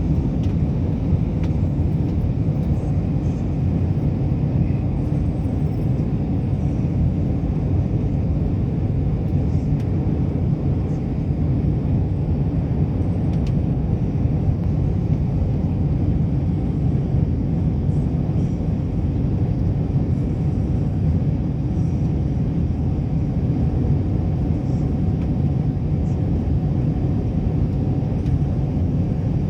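Steady low rumble inside an airliner cabin in flight on descent: jet engine and airflow noise, even throughout.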